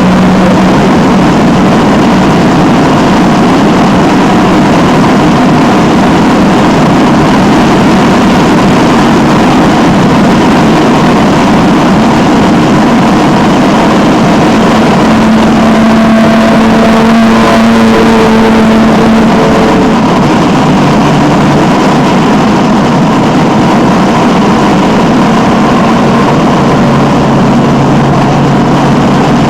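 Alfa Romeo 1750's twin-cam four-cylinder engine running hard at racing speed, heard from inside the car, loud and steady throughout.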